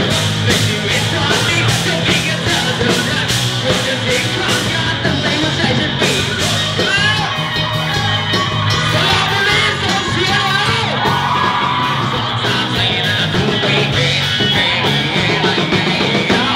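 Live rock band playing loud, with electric guitar, drums and cymbals, while a crowd of women yells and sings along.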